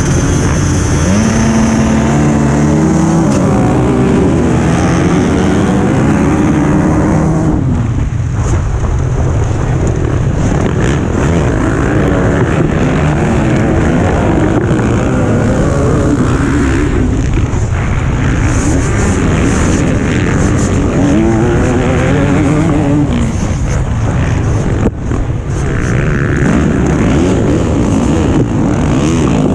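Motocross motorcycle engines revving at the start gate, then running flat out as the pack launches and races away. The nearest bike's engine rises and falls in pitch again and again as it accelerates and shifts through the gears.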